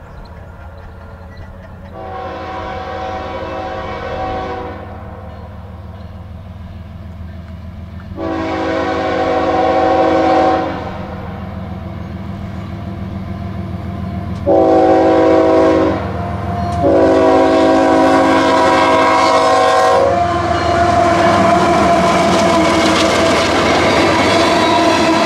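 CSX diesel locomotive's multi-note air horn sounding the grade-crossing signal, long, long, short, long, over the steady low drone of its engine as it approaches. After the last blast the locomotive goes by and loaded hopper cars rumble past with wheel clatter.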